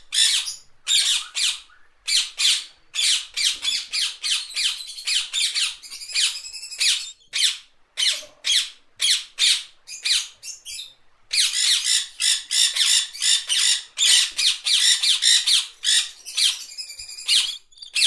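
Rainbow lorikeet calling: a long run of short, harsh screeches, about three a second, with a brief pause about eleven seconds in.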